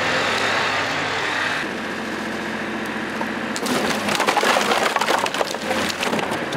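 A 24 hp sub-compact tractor's engine runs steadily, its note shifting about a second and a half in. From about three and a half seconds in, a bucketload of split firewood tumbles from the loader bucket and clatters onto the woodpile in a dense run of knocks.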